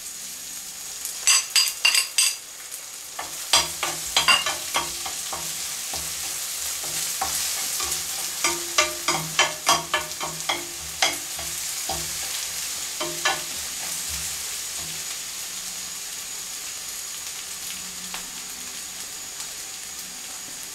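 Beaten egg frying in a pan of oil with onion and hot pepper: a steady sizzle, with a utensil knocking against the pan as it is stirred, many sharp knocks up to about two thirds of the way through, after which only the sizzle goes on.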